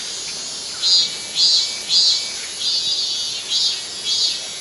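Cicada calling: a steady high buzz that swells into loud pulses about twice a second.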